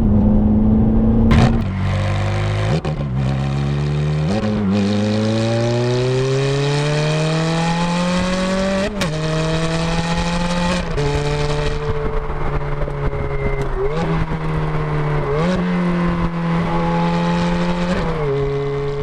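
2006 Ferrari F430's 4.3-litre V8 accelerating through the gears. The revs climb in one long rise from about 4 to 9 seconds, and each paddle-shift gear change cuts the pitch with a sharp crack. Later the engine holds steadier revs with a few brief rev changes.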